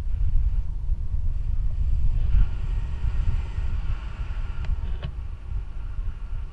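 Wind buffeting an action camera's microphone in flight under a tandem paraglider: a heavy, uneven low rumble with a lighter airy hiss, and two faint clicks about five seconds in.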